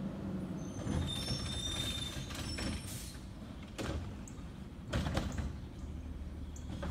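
A CNG garbage truck, a 2009 Autocar ACX with a Heil Odyssey body and a Curotto Can arm, with its brakes squealing high as it stops between about one and three seconds in. Then come metal clanks as the arm grabs and lifts a trash cart, and the engine runs stronger from about five seconds in.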